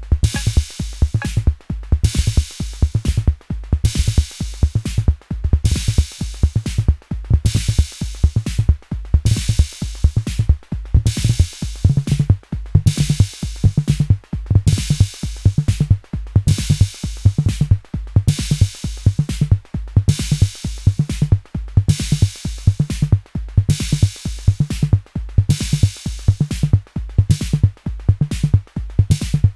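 Arturia Drumbrute Impact analog drum machine playing a steady beat: a repeating kick drum under bright, noisy snare and cymbal-like hits that come about once a second.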